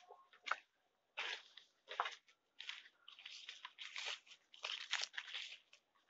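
Footsteps crunching through forest leaf litter and undergrowth: an uneven run of crunches, about three every two seconds.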